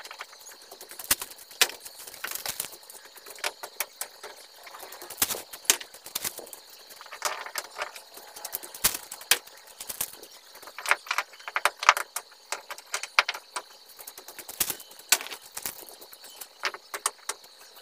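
Loose bricks and stones clacking and scraping against each other as they are picked up and stacked by hand, in many irregular sharp knocks.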